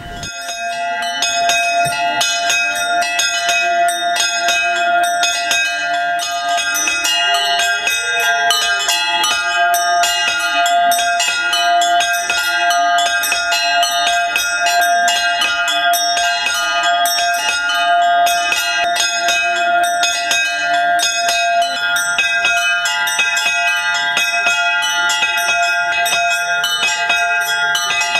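A set of monastery church bells rung by hand with ropes in a fast, unbroken peal: rapid clapper strikes over a steady ringing hum.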